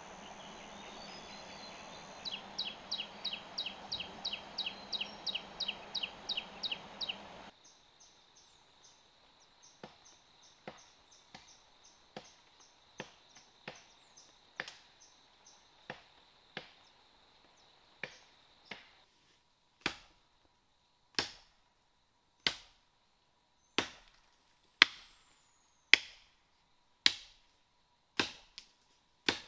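Hammer blows ringing on iron: first a quick run of about three or four strikes a second, then, after a cut, slower single strikes about a second apart that grow louder in the last third.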